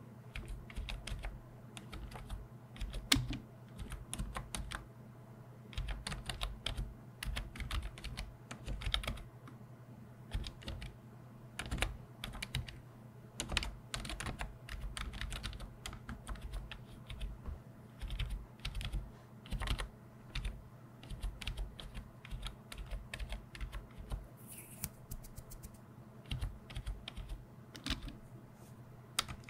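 Fingers typing on a backlit computer keyboard: quick, irregular runs of key clicks with short pauses between them.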